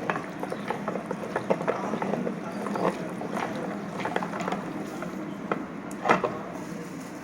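Electric meat grinder grinding a lemon: a steady motor hum under irregular wet crackling and squelching of the fruit being crushed, with a louder crack about six seconds in.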